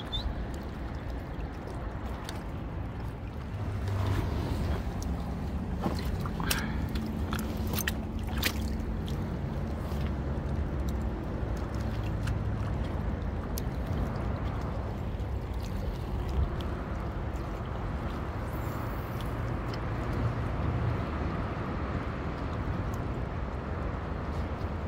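Small sea waves sloshing and gurgling against shoreline rocks over a steady low rumble, with a few light clicks about six to eight seconds in.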